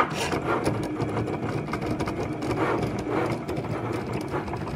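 Cricut Maker cutting machine at work cutting printable sticker paper: a steady motor whir from the blade carriage and mat rollers, with irregular small ticks as the carriage and mat move back and forth.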